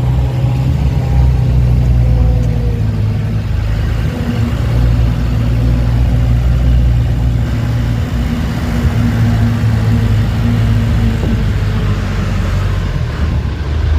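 A motor vehicle's engine running steadily with a low hum that rises and falls a little in pitch, heard from on board the vehicle.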